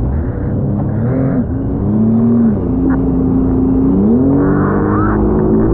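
Jet ski engine running at speed, its pitch rising and falling several times with the throttle, over the rush of spray and wind.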